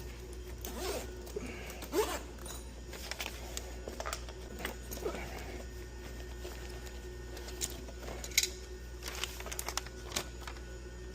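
Scattered small metallic clicks and scrapes as a conduit lock nut is worked back and forth by hand, trying to catch its thread. A low steady hum runs beneath.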